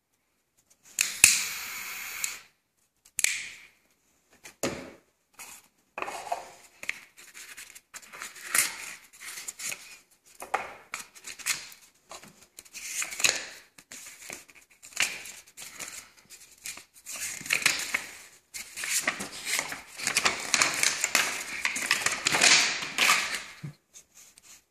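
Unboxing handling noise: a cardboard box, paper inserts and a small metal lighter being handled, with irregular rustling, clicks and taps. A louder click with a second-long hiss-like burst comes about a second in.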